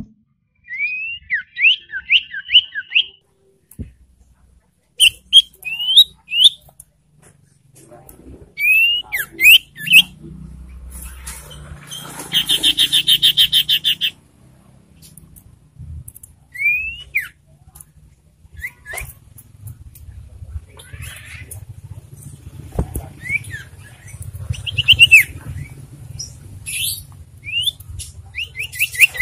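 Common iora calling: groups of short rising whistled notes, and a rapid chattering trill lasting about two seconds near the middle, over a low background hum.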